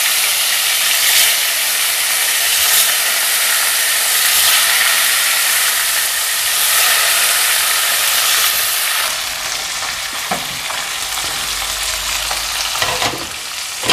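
Salted fish deep-frying in hot oil in a wok: a steady, crackling sizzle. About nine seconds in it gives way to a softer hiss of a pot of vegetable soup at a rolling boil, with a low rumble underneath.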